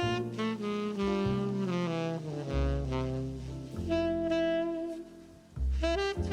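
Jazz background music led by saxophone over a walking bass line, with a brief drop in level near the end.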